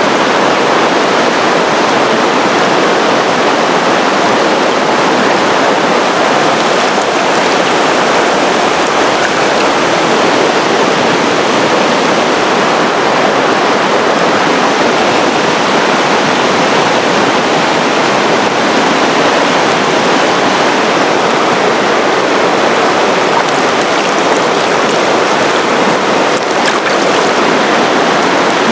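Fast, shallow mountain river rushing over rocks and rapids: a loud, steady roar of running water.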